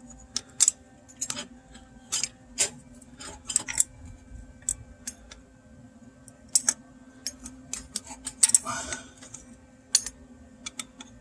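Irregular sharp metallic clicks, about one or two a second, of a wrench working a welded-on nut to back a broken exhaust manifold stud out of the cylinder head, over a faint steady hum.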